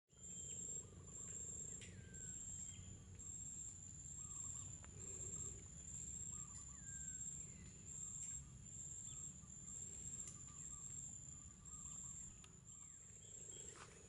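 Wild birds calling in short chirps and falling whistles every second or two over a steady high-pitched insect drone, with a low rumble underneath.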